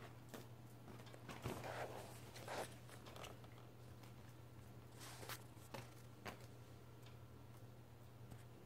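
Faint, scattered rustling and scratching of a cat's paws and claws on a nylon pop-up play tunnel as the cat wrestles with it, over a steady low hum.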